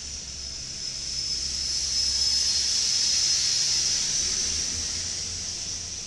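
Freight train's loaded flatcars rolling past: a steady high hiss of steel wheels on rail with a thin ringing tone in it, over a low rumble, swelling to a peak in the middle and easing off toward the end.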